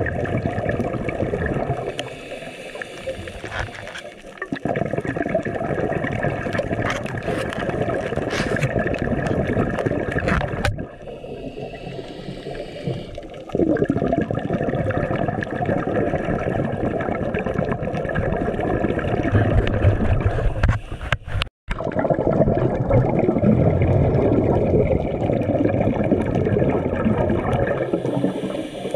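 Bubbling and rushing water heard underwater through a camera housing, a dense gurgling rush. It eases off for a couple of seconds twice and drops out for an instant a little past the middle.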